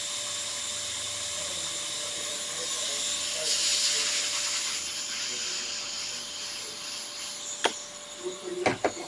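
Air blowing steadily over an iPhone logic board to clear away isopropyl alcohol after cleaning, a steady hiss with a faint hum that swells briefly in the middle. A few sharp clicks near the end.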